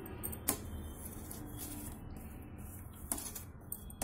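A steel spoon pressing and smoothing a crumbly sweet mixture in a steel plate: soft scraping with a few light clicks of the spoon against the metal.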